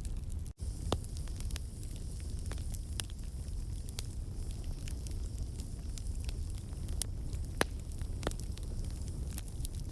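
Campfire burning, with frequent sharp crackles and pops over a steady low rumble of the flames. The sound cuts out for an instant about half a second in.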